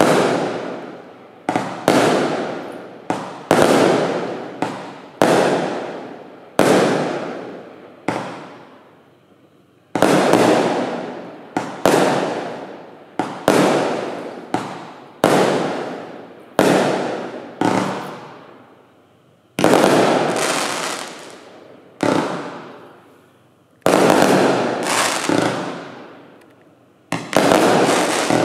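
Bright Star 2605 Frostbite 36-shot firework barrage cake firing shell after shell: about twenty sharp bangs roughly a second apart, each fading away over about a second, with a few brief pauses between volleys.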